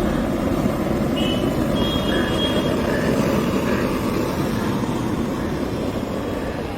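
Steady road traffic noise of vehicles on a busy street, a continuous rumble of engines and tyres, with a couple of short faint high tones between about one and three seconds in.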